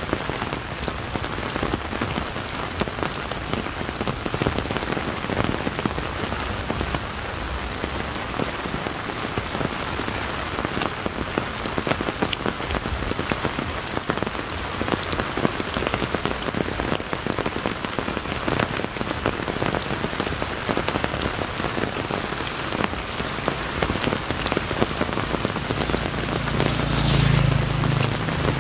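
Steady rain falling, with many single drops ticking sharply among the wash of rain noise. Near the end a low rumble swells for a few seconds, then fades.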